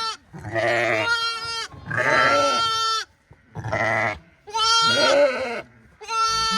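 Sheep bleating: about five calls in quick succession, some with a wavering pitch and at differing pitches, as from more than one animal.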